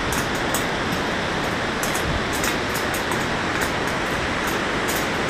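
Steady rushing noise with an uneven low rumble, like wind buffeting the microphone, overlaid by sharp irregular clicks of footsteps and trekking-pole tips on the steel grating of a suspension footbridge.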